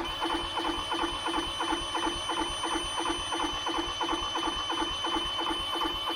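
A truck APU's small diesel engine cranking over on its starter with an even pulse of about three beats a second, not firing. The owner puts the no-start down to failed glow plugs.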